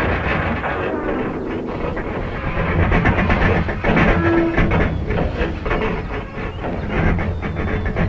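Stock 'metal fatigue' sound effect of 1970s–80s film and TV: heavy metal creaking and groaning under strain, continuous and irregular, with a brief pitched groan about halfway through.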